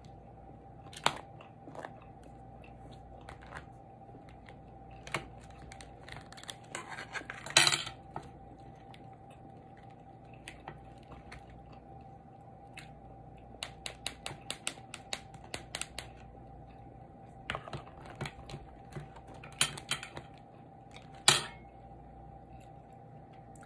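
Cooked lobster shell being handled and broken apart by hand: scattered sharp cracks and crackles, with a quick run of small clicks partway through, over a faint steady hum.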